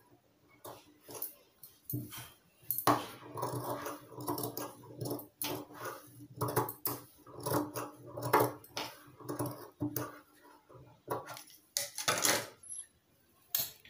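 Scissors snipping into a cotton blouse's seam allowance, making many short, irregular metallic clicks: clipping the neck curve crosswise so it turns out neatly.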